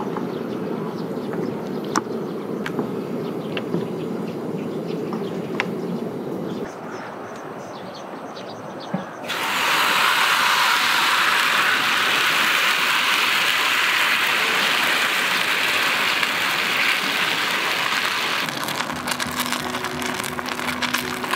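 A utensil stirring batter in a stainless steel bowl, with a few sharp clicks against the metal. About nine seconds in, a loud, steady sizzle starts suddenly as batter hits a hot Nanbu cast-iron takoyaki pan, and near the end it gives way to a steady low hum with light ticking.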